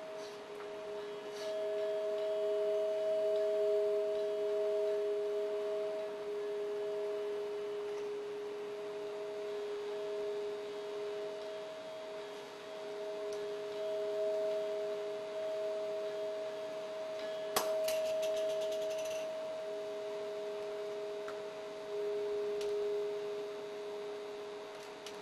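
Sustained drone of two steady pure tones, one low and one a little higher, held together and slowly swelling and fading: the accompanying soundscape of a dance performance. About two-thirds of the way through, a sharp click is followed by a quick run of rattling ticks.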